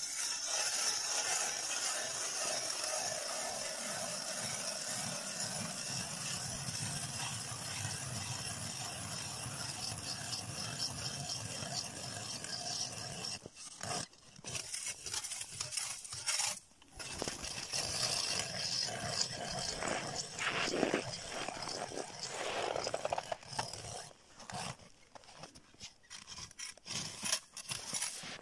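A hand-cranked ice auger drilling a hole in river ice: the blades keep up a steady rasping scrape as they shave the ice. It breaks off briefly about 14 and 17 seconds in, and the cutting is more stop-and-go in the later part.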